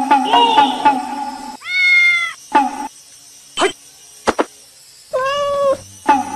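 A domestic cat meowing: a long meow about two seconds in and another near the end, with shorter calls after each. Before the first meow there is a short stretch of music with a plucked beat, and a couple of sharp clicks fall between the meows.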